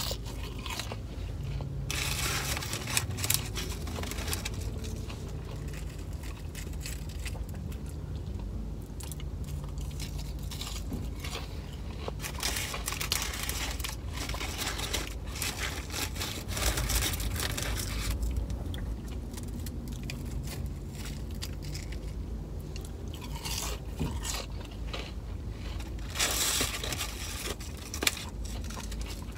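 A person chewing and crunching on fries with their mouth, in several short bursts, over a steady low hum.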